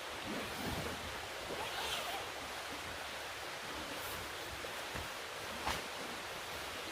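Steady rush of river water flowing, with a faint knock near the end.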